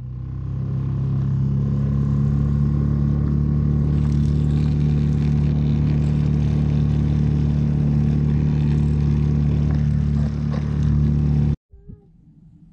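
Small gas outboard motor running steadily under way at a constant pitch, pushing a Nucanoe Frontier 12 canoe. It cuts off abruptly near the end, leaving faint open-air sound.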